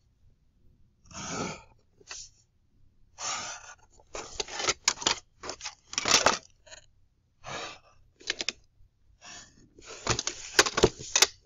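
Pencil strokes on drawing paper, darkening lines along a plastic set square and ruler: a series of short scratchy strokes, with sharp clicks from the plastic drawing instruments being shifted and set down around the middle and again near the end.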